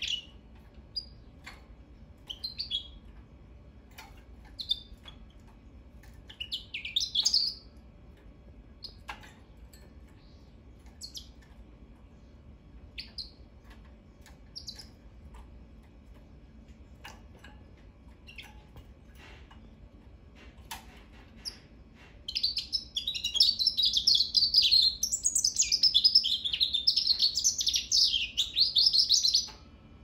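Goldfinch × African canary hybrid finch giving scattered short high chirps, with faint clicks between them, then singing a continuous, quickly changing song for about seven seconds near the end.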